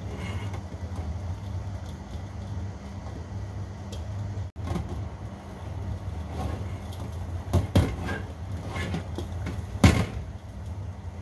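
Beaten egg frying in a black carbon-steel wok over a steady low hum. A few metallic knocks sound as the wok is shifted and tilted on the burner, the loudest about ten seconds in.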